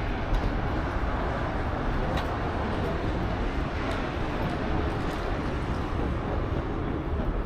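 Steady city ambience of road traffic rumble, with a few faint brief ticks.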